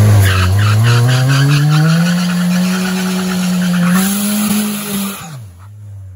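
Nissan 240SX doing a burnout: the engine is held at high revs while the rear tyres spin and squeal on the strip. The revs climb over the first couple of seconds, hold, rise once more about four seconds in, then drop off sharply a little after five seconds as the driver lets off.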